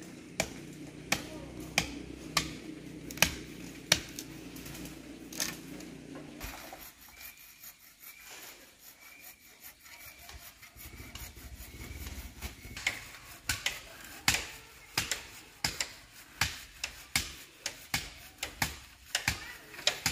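A run of sharp knocks, about one every second at first, fewer in the middle and coming faster near the end, over a steady low hum that cuts off suddenly about six seconds in.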